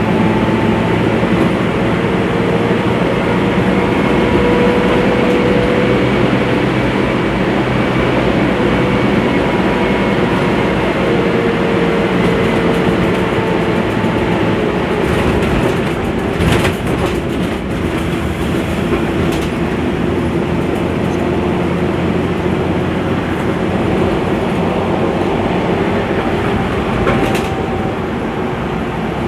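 Mercedes-Benz O-500U city bus's diesel engine running, its note climbing and falling several times as it drives. There are a few sharp clicks about 16 seconds in, when the sound briefly dips.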